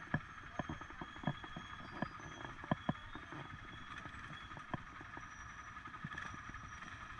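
ATV engine running at low speed on a dirt trail, with irregular knocks and rattles as the quad rolls over bumps, most of them in the first three seconds.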